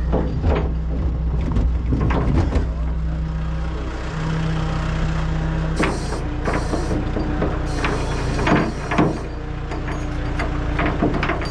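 Hino rollback tow truck's diesel engine and bed hydraulics running steadily, the hum changing pitch about four and six seconds in, with repeated clunks and rattles as a wheeled steel toolbox rolls down the tilted diamond-plate bed on its winch line.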